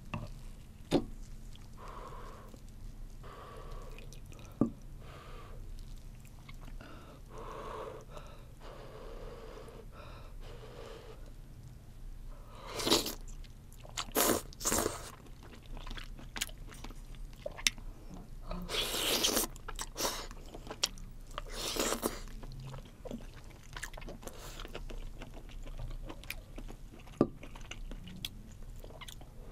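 Close-miked eating sounds of seaweed soup (miyeok-guk) and its seaweed: soft chewing and mouth noises, with several louder noisy bursts of eating in the second half. A few sharp clicks of spoon and chopsticks against the dishes.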